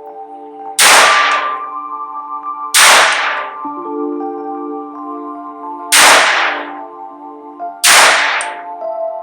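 Four single shots from a Taurus TX22 .22 Long Rifle pistol, each a sharp crack, fired one or two seconds apart, over background music of held chords.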